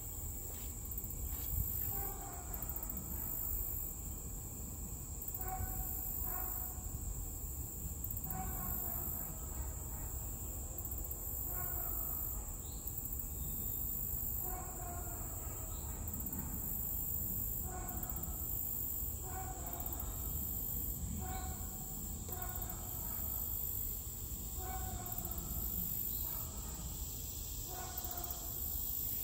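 Outdoor summer ambience: a steady high insect drone, with an animal's short calls repeating about once a second, often in pairs.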